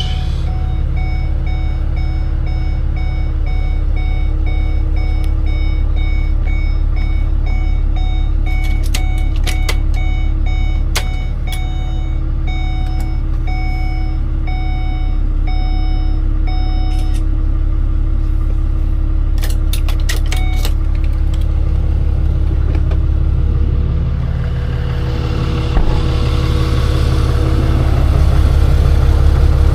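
A heavy truck engine runs steadily, with a repeating electronic beep over it through roughly the first half; the beep then stops. A few sharp clicks sound in between, and the engine noise swells near the end.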